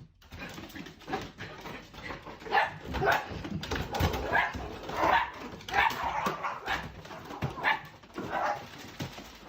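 A dog giving a run of short barks and whimpers at irregular intervals.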